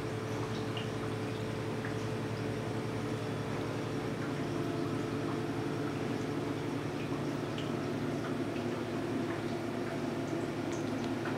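Steady hum of running reef-aquarium equipment, pumps and a clip-on fan over the tank, with water trickling and small drips from the tank's circulation. The hum's tone shifts a little about halfway through.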